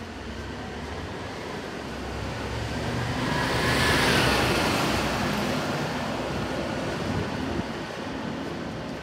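A large vehicle passes along the street, its sound building up to loudest about four seconds in and then fading as it drives away ahead.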